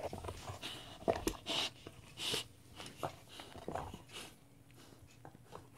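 A dog chewing and gnawing on a rubber chew toy: irregular clicks and soft crunches of teeth working the toy.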